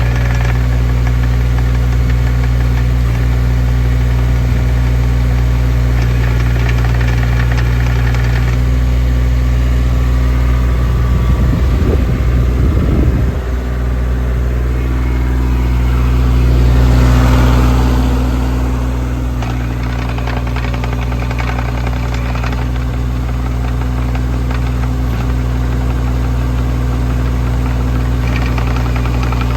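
JCB 8018 mini excavator's diesel engine running steadily, with an uneven fluttering patch about twelve seconds in and a brief swell in level a few seconds later.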